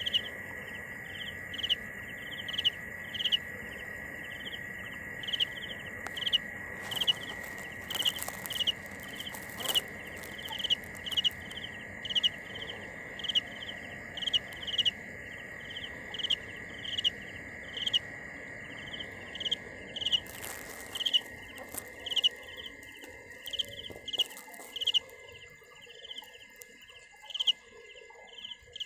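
A field cricket (dế mèn) chirping: short, evenly spaced chirps repeated steadily, roughly one or two a second. Under it runs a steady high tone that fades out about four-fifths of the way through.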